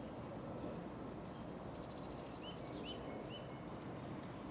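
Small songbirds: a fast, high trill of evenly repeated notes about two seconds in, lasting about a second, and short rising chirps repeated over and over, over a steady low background hum.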